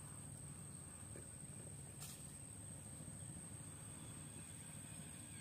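Quiet outdoor ambience: a steady high-pitched insect drone over a low, even background rumble, with one faint click about two seconds in.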